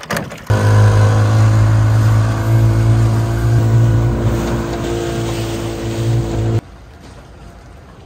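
Yamaha outboard motor running steadily at speed, pushing an inflatable dinghy across the water, with an even engine note. It stops abruptly near the end, leaving a much quieter background.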